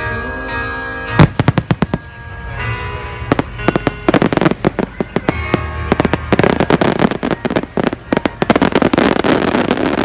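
Aerial fireworks bursting over music: one loud bang about a second in, a quick run of pops right after, then dense rapid crackling pops through the rest.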